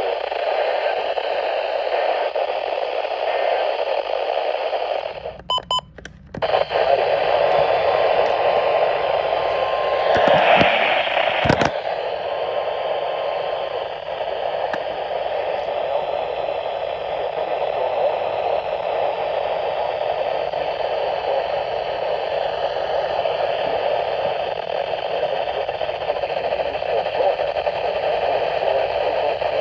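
Steady radio static hiss from a receiver with no voice on it. It drops out briefly about five seconds in, and there is a short louder crackle ending in a click about eleven seconds in.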